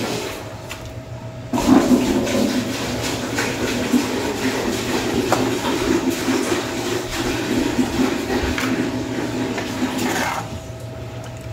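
Toasted peanuts being tipped and scraped out of a rice cooker's inner pot: a dense, steady rattle that starts abruptly about a second and a half in and stops about a second before the end.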